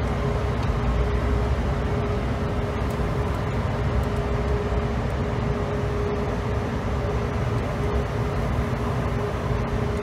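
Steady cockpit noise of a business jet on final approach with the landing gear down: a constant rumble of airflow and engine with a thin steady hum, and the right engine out after a bird strike.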